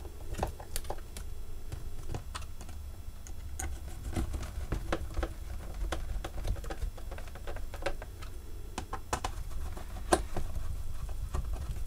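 Irregular light clicks and taps of small plastic parts and tools being handled on a workbench, over a low steady hum.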